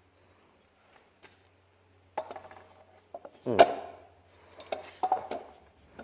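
Metal parts clinking and knocking as they are handled and set in place, with one louder clatter a little past halfway and a few more clicks near the end.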